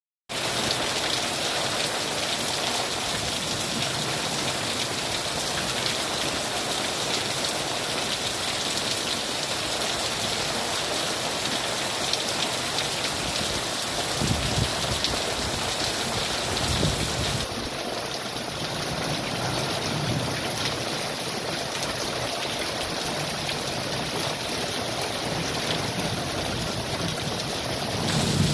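Steady rain falling on tree leaves and a gravel yard, with a low rumble about halfway through.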